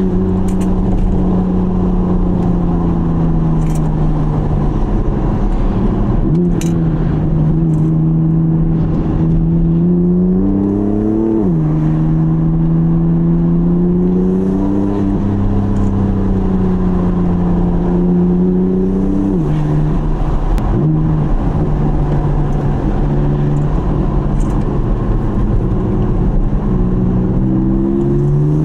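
BMW F80 M3's S55 twin-turbo inline-six, heard from inside the cabin, pulling under load. Its note climbs and then drops sharply at each upshift, several times, and climbs again near the end.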